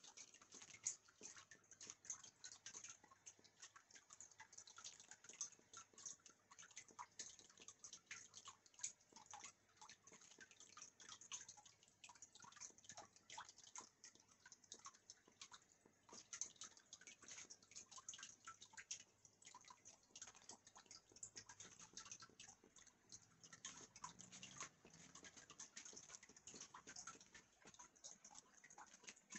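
Faint, irregular ticking and popping from a pot of water simmering on a stove hob, many small clicks and drips a second with no steady rhythm.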